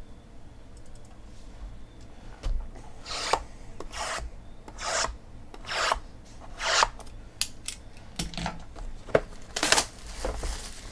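Cardboard hobby boxes sliding and rubbing against each other and the tabletop as a stacked set is handled: a run of short swishes starting about three seconds in, then light taps and knocks and one more swish near the end.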